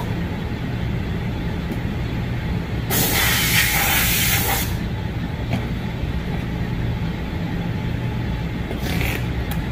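A motor or engine humming steadily, with a loud hiss of escaping air about three seconds in that lasts nearly two seconds.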